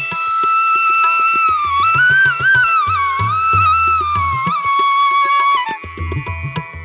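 Background music: a flute melody that bends and ornaments its notes, over low, repeated drum beats. The melody stops shortly before the end.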